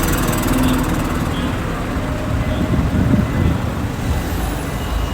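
City street traffic: engines of passing vehicles running with steady road noise.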